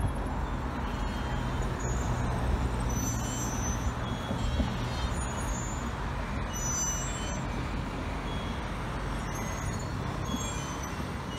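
Road traffic: a heavy vehicle's engine runs close by for the first few seconds over a steady hum of passing traffic.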